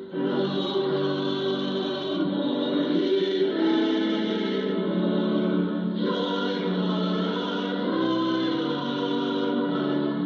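A choir singing, received over longwave AM radio, so it sounds narrow and muffled with no highs.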